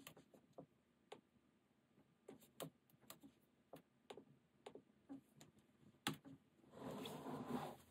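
Faint, scattered keystrokes on a laptop keyboard, then a louder click just after six seconds as the laptop lid is shut, followed by about a second of rustling noise near the end.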